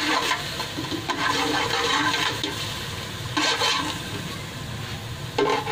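Steady hissing from a large aluminium pot heating on the stove, with a metal ladle scraping around its bottom. Louder scrapes come about three and a half and five and a half seconds in.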